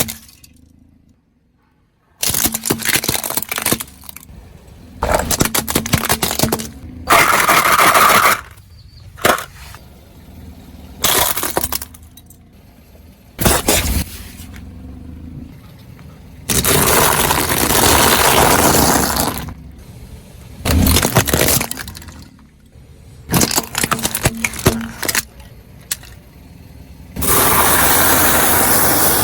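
A car tyre rolling over and crushing brittle objects: about nine separate bouts of loud crunching, cracking and breaking, each a second to three seconds long, with short pauses between them.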